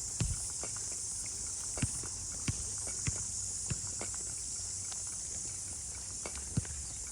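Steady high-pitched insect chorus, with half a dozen sharp knocks at irregular intervals; the loudest comes near the end.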